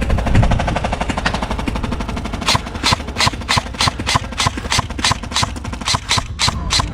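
Airsoft guns firing: a dense, rapid full-auto string of cracks, then, from about two and a half seconds in, a steady run of separate shots about four a second.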